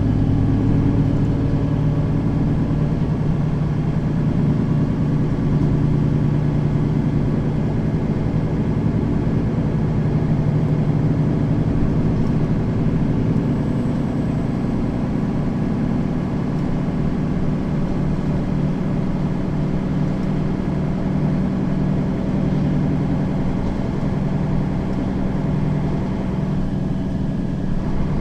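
Mercedes-Benz Citaro city bus's diesel engine running steadily as the bus drives, heard from inside the passenger cabin.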